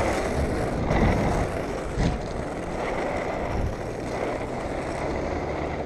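Inline skate wheels rolling over street asphalt: a steady, rough rolling noise, with a couple of small bumps about one and two seconds in.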